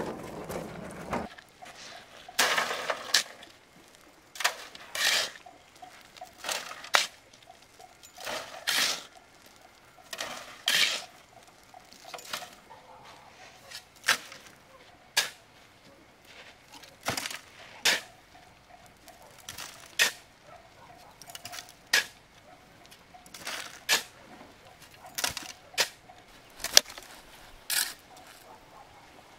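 A long series of sharp knocks, like a hand tool striking, one every second or two at an irregular pace; some have a short ring.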